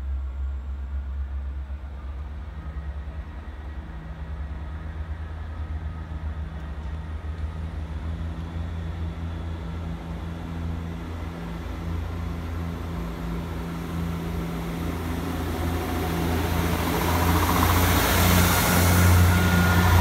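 A diesel multiple unit train approaching and running in along the platform. Its engine drone grows steadily louder, and wheel-on-rail noise builds over the last few seconds as it comes close.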